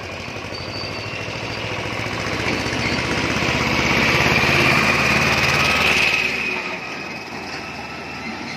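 A motor vehicle's engine passing close by, growing louder to a peak and then dropping away about six and a half seconds in.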